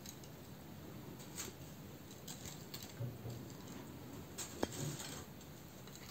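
Faint crisp rustles and a few light clicks of potato chips being set one at a time around the rim of a plate, with the sharpest click about four and a half seconds in.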